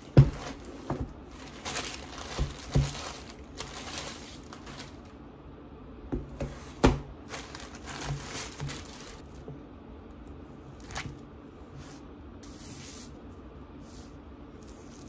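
Plastic courier mailer bags crinkling and being cut and torn open with scissors, with several sharp knocks as the parcels and books inside are handled on a table. The rustling dies down after about nine seconds.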